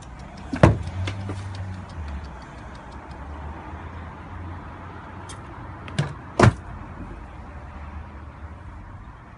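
Three sharp knocks: a loud one about half a second in, then two in quick succession about six seconds in, over a faint low rumble.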